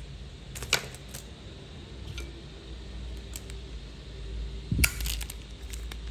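Sharp metallic clicks and clinks of brass Zippo lighters being handled, with one click just under a second in and the loudest just before five seconds, over a low steady hum.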